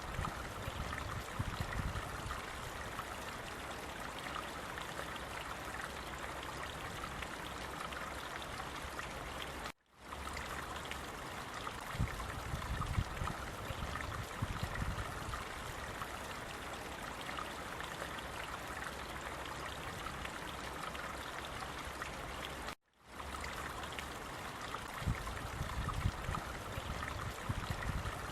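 Steady rush of running water, with low rumbles at times. It drops briefly to silence twice, about ten seconds in and again about twenty-three seconds in.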